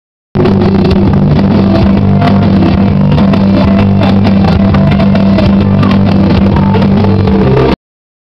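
Loud music with a steady bass line and guitar, played over a club sound system. It starts a moment in after a brief silence and cuts off suddenly near the end.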